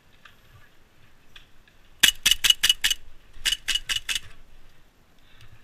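Elite Force 1911 Tac airsoft pistol firing two rapid strings of about five shots each, with a short pause between the strings.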